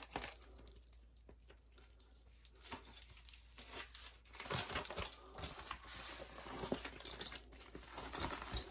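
Faint rustling and crinkling of a plastic mailer bag being handled and opened. It starts a couple of seconds in and gets busier toward the end.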